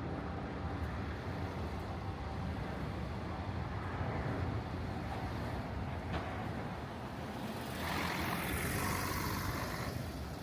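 Steady city traffic ambience: a low rumble of road vehicles, with a louder hiss swelling about eight seconds in and fading again near the end.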